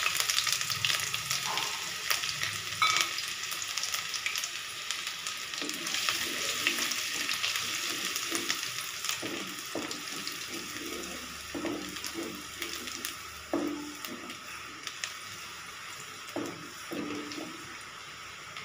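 Chopped ginger sizzling in hot oil in a metal kadhai, the sizzle easing off gradually. From about five seconds in, a wooden spatula stirs it with short scrapes against the pan.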